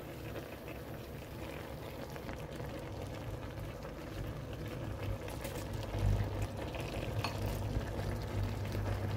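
Brown sauce simmering in a pan of sliced rice cakes, cabbage and minced pork, bubbling and crackling steadily. A low rumble joins about six seconds in.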